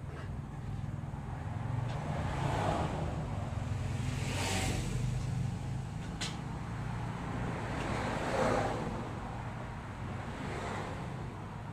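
Steady low rumble of road traffic, with vehicles swelling past several times, and a single sharp click about six seconds in.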